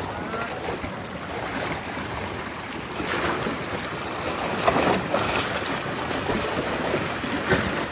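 Sea waves washing and splashing against breakwater rocks, with wind blowing across the microphone; the wash swells louder a few times.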